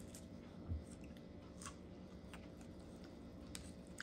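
Faint chewing of a hash brown, with a few soft clicks and a dull knock about three quarters of a second in, over a low steady hum.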